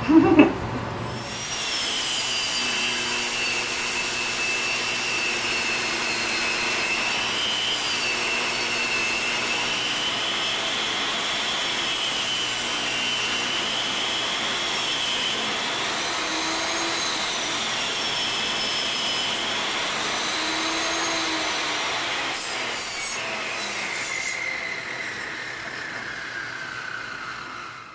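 Table saw running and ripping a walnut board, its blade whine wavering in pitch as the cut loads it. Near the end the whine falls steadily in pitch as the blade winds down.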